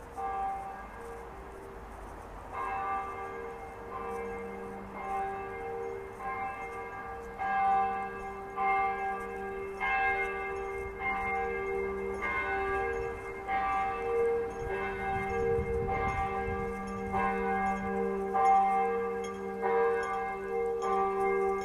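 Church bells ringing, a new stroke about every second over the steady hum of the strokes before it still sounding.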